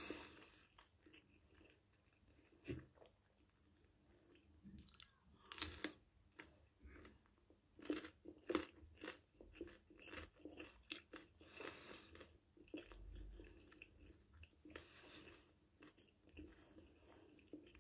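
A person chewing raw red bell pepper, with crisp crunches coming in short runs every few seconds and quieter chewing between.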